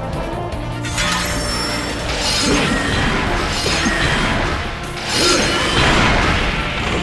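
Battle sound effects of energy blasts and explosions striking a monster, several bursts starting about a second in, over background music.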